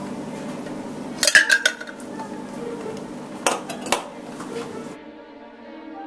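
Metal tongs, an ice block and a ceramic mug clinking as the ice goes into the mug: a quick run of sharp clinks about a second in, one ringing briefly, then two more clinks a few seconds later.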